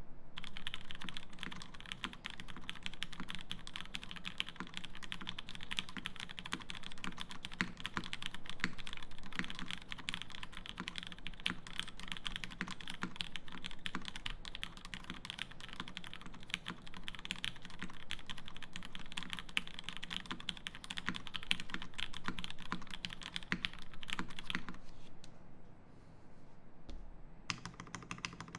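Fast, continuous typing on a TGR Jane V2 CE mechanical keyboard with lubed Cherry Hyperglide Black linear switches, a carbon plate and GMK keycaps: a dense stream of keystroke clacks. Near the end the typing nearly stops for a couple of seconds, then starts again.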